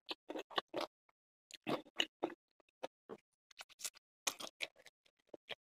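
Chewing a mouthful of pizza close to the microphone: a run of short, irregular wet mouth clicks and smacks.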